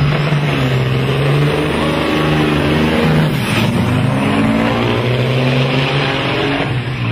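Loaded semi-truck's diesel engine accelerating hard from a launch. Its pitch climbs, drops abruptly at a gear shift a little past three seconds in, then climbs again.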